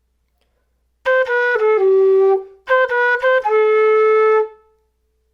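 Quena (Andean notched flute) playing a short sequence of tongued notes stepping downward, twice over. The first phrase ends on a low note and the second closes on a long held note. It is an ear-training melody meant to be worked out by ear.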